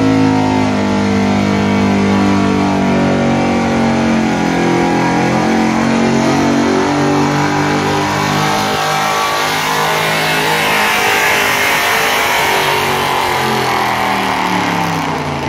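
A stock pickup truck's engine held at high revs under heavy load as it pulls a weight-transfer sled. The note is steady at first, grows rougher and hissier through the second half, and its pitch drops near the end.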